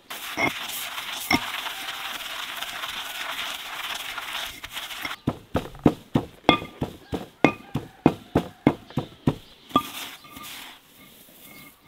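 Pestle pounding dried herbs in a large stone mortar: a steady dry rustling at first, then about a second in from the midpoint a run of sharp, even strikes, about three a second, that stops shortly before the end.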